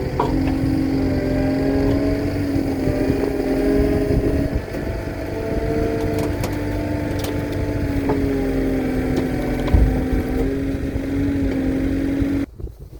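Engine of a working vehicle running under varying throttle, its pitch rising and falling several times, then cutting off abruptly near the end.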